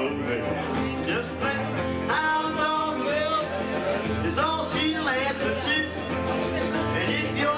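A man singing with his own acoustic guitar accompaniment, the voice sliding and wavering over the steady guitar chords.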